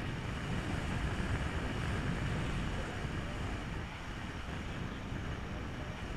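Steady wind rushing over the microphone of a camera carried in paraglider flight, a rumbling noise heaviest in the low end.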